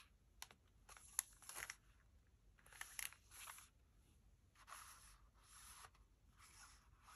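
Faint rustling and crinkling of paper as the pages of a handmade paper junk journal are turned and handled, in about five short bursts.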